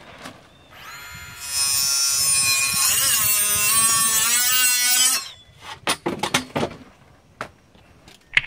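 Ridgid 18V subcompact multi-material saw with a finishing-type blade running for about four seconds while cutting three-quarter-inch MDF fiberboard. Its high motor whine dips in pitch about midway as the blade takes the load, then stops. A few sharp clicks or knocks follow.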